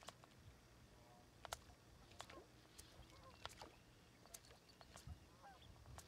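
Near silence over open water: scattered faint ticks and small clicks, with a few faint short chirps.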